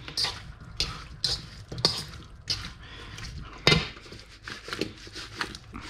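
A metal spoon clinking and scraping in a stainless steel bowl as chopped cucumber is mixed with its chilli-oil dressing, then the bowl being tossed. Irregular clicks and scrapes, with one louder knock a little past the middle.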